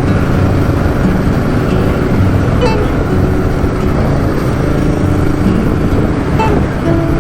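Steady, loud road and engine noise of a vehicle on the move, with faint held musical notes over it.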